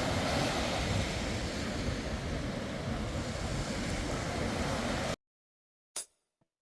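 Wind buffeting the microphone over a steady rushing noise, cutting off abruptly about five seconds in. A single sharp percussive hit follows near the end.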